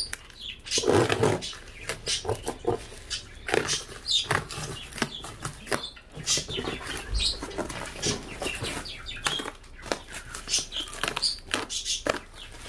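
Packaging being handled during an unboxing: irregular rustling and clicks, with a louder thump about a second in.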